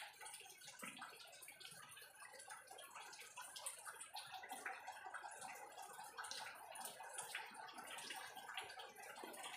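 Faint wet chewing and mouth sounds of a person eating mango, with many small irregular clicks and a light scrape of a spoon in a bowl.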